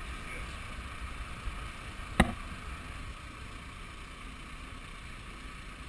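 Steady low rumble and hiss of a sport-fishing boat running at sea, with one sharp knock a little over two seconds in.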